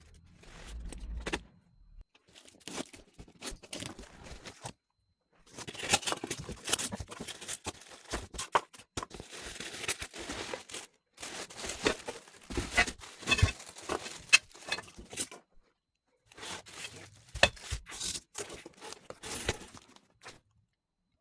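Packaging being torn open and crinkled by hand: spells of ripping and rustling with sharp clicks and knocks, broken off abruptly by short silent gaps.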